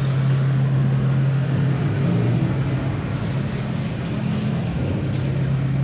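A steady low hum over a dense background rumble, wavering slightly in pitch for a second or so in the middle.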